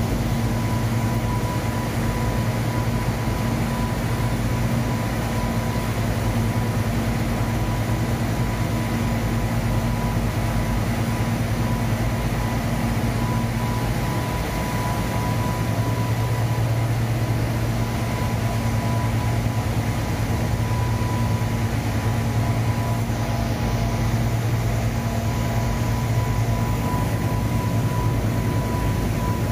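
Industrial washer-extractor machinery running: a steady, loud machine hum with a thin high whine held throughout. The low hum shifts a little about halfway through.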